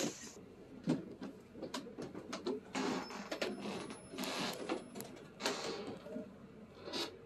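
Footsteps climbing carpeted stairs and moving across a room, with scattered clicks and knocks and a few brief rustles.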